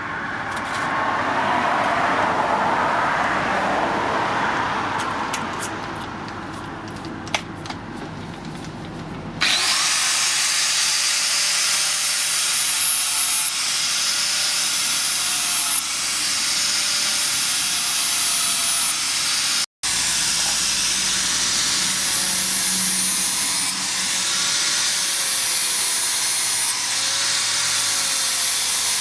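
Power tool working against a workpiece. A rasping noise with scattered clicks changes suddenly, about nine seconds in, to a bright hiss over a motor whine that wavers in pitch. The sound shifts abruptly several more times.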